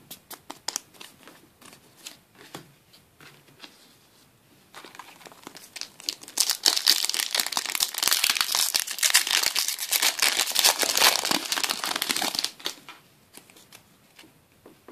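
Scattered light clicks of trading cards being handled, then several seconds of dense crinkling and tearing as a foil Yu-Gi-Oh booster pack wrapper is ripped open; the crinkling stops about two seconds before the end.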